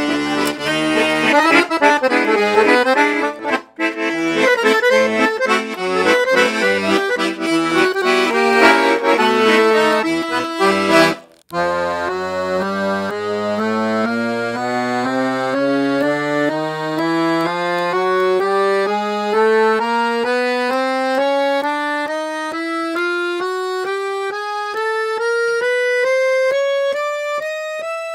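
La Melodiosa Model 70 piano accordion, with four-voice LMMH treble reeds and a double tone chamber, playing a tune with chords and bass. After a brief break about eleven seconds in, it plays a slow rising scale up the treble keyboard, one note at a time, on a single long pull of the bellows.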